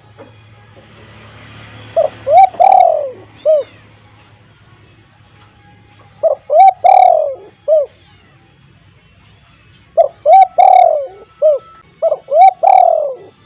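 Spotted dove (tekukur) giving its loud, repeated coo: phrases of several short notes, one every few seconds, the last running on past the end.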